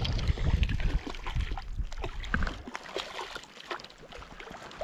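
Light water splashing and lapping with small scattered ticks, over a low wind rumble on the microphone that drops away about two and a half seconds in.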